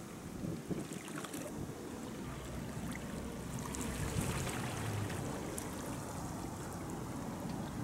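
Steady wind rumble on the microphone over faint lapping water, with scattered small ticks.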